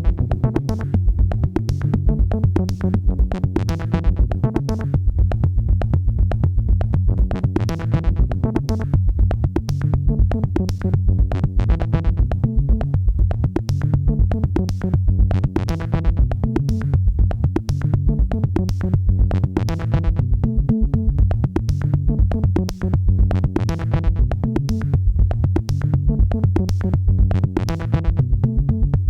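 Electronic background music: synthesizer over a steady drum-machine beat.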